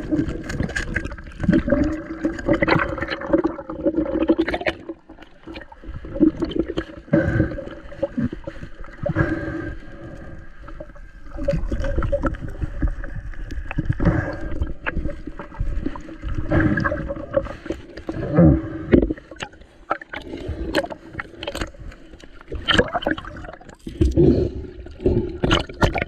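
Muffled underwater sound of water and gurgling bubbles, broken by many irregular clicks and knocks from handling a speared amberjack on the spear shaft, over a faint steady hum.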